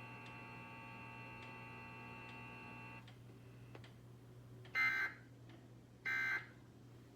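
Emergency Alert System end-of-message data bursts, the warbling digital tones that close an alert: two short bursts about a second and a half apart in the second half, played through a laptop speaker. Before them a steady electronic buzz stops about three seconds in.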